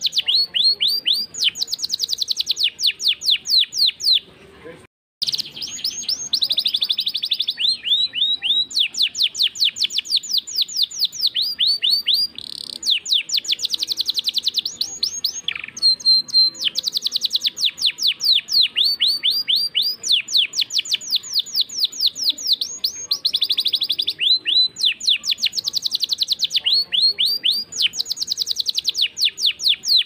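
Domestic canary singing a long, continuous song of fast rolling trills. Each trill is a rapid run of repeated downward-sweeping notes, and the phrase changes every second or two. The song breaks briefly about five seconds in, and there is a short held whistle about halfway through.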